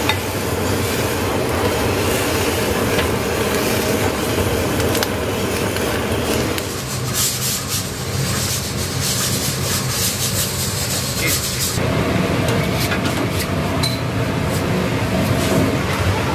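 Restaurant kitchen noise: a steady low hum with scattered light clinks, and a hiss from about seven to twelve seconds in.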